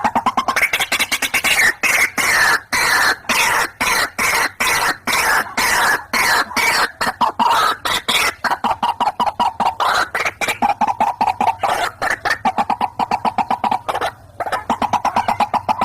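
White-breasted waterhens (ruak-ruak) calling in a fast, unbroken series of harsh croaking notes, several a second. About halfway through the calls settle into a steadier repeated note.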